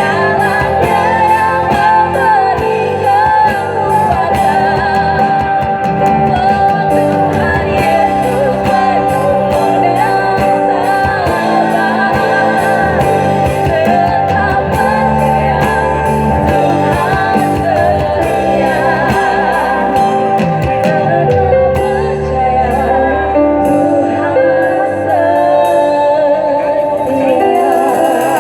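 Live praise-and-worship band playing and singing, with a drum kit keeping the beat under guitar and a singing voice.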